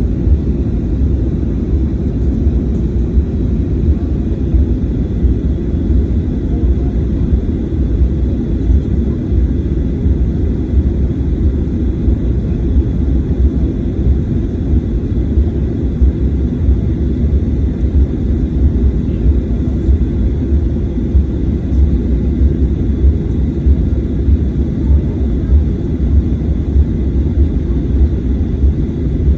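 Cabin noise of a Boeing 737-800 with its CFM56 turbofan engines running: a loud, steady low rumble with no change in pitch or level.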